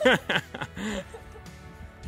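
A person laughing briefly in the first second, over background music.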